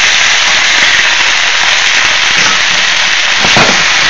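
Freshly washed, wet vegetables sizzling and crackling loudly in hot sesame oil in a wok, a steady hiss, with one sharp knock a little over three seconds in.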